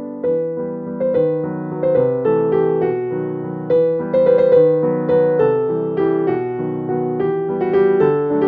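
Background piano music, a steady run of notes starting one after another.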